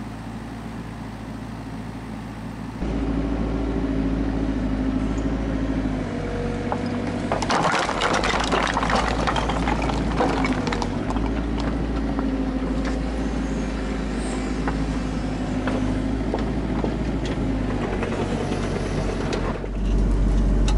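Kubota KX121-3 mini excavator's diesel engine running under load, with a hydraulic whine that rises and falls in pitch as the arm and bucket move. A stretch of knocks and clatter comes about a third of the way in.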